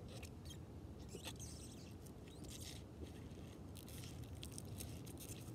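Faint, irregular scraping and crunching over a steady low rumble.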